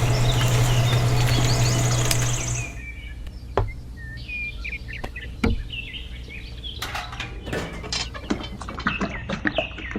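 A loud steady hum, like a small motor running, cuts off about two and a half seconds in. After that, birds chirp among scattered sharp clicks and knocks.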